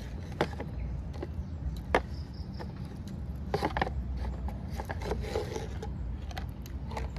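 Paper instant-noodle cups being picked up, shifted and set down on a tabletop: scattered light knocks and scrapes, some sharp, over a steady low rumble.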